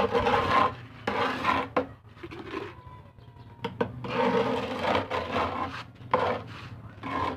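Small metal trowel scraping and spreading a gritty mix of tile grout, wood glue and sand across a plywood box top, in repeated scraping strokes. A couple of sharp knocks come in the middle.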